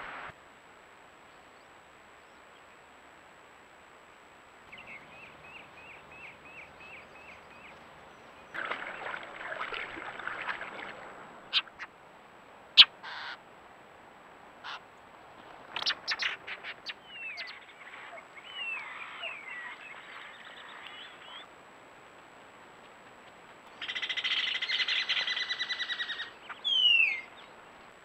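Wild birds calling: a quick run of about nine evenly spaced high notes about five seconds in, scattered chirps and chatter through the middle, and a harsh buzzing call a few seconds before the end.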